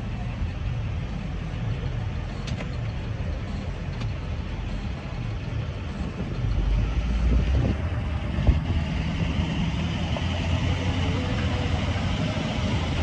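Fire truck engine running at idle, getting louder about six and a half seconds in, with a sharp knock a little after that.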